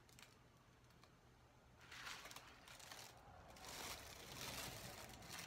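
Near silence, then faint rustling and handling noise from about two seconds in as a sandal and the tissue paper stuffed in it are turned over in the hands.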